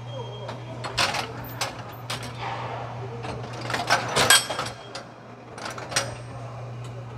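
Automated manju-baking machine at work: sharp metal clicks and clanks as the filling dispensers move over the cast-iron moulds, loudest in a quick cluster near the middle, over a steady low hum.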